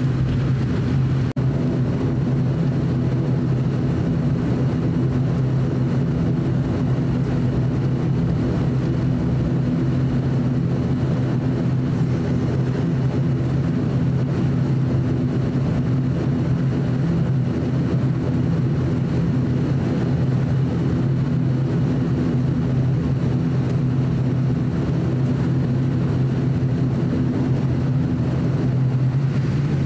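ATR 42-600's turboprop engines and propellers running steadily on the ground, heard inside the cabin as a steady low drone with a strong hum.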